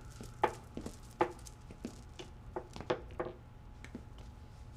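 Scattered light knocks and clinks, about a dozen, some with a brief ring, over a faint steady hum.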